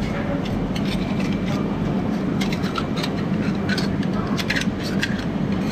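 Steady background din with a low hum, broken by many short clicks and clatters that grow more frequent after the first couple of seconds.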